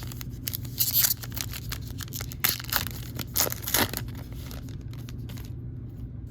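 A foil trading-card pack wrapper being torn open and crinkled, in irregular crackling bursts. It is loudest about a second in and again around the middle, and it stops about a second before the end.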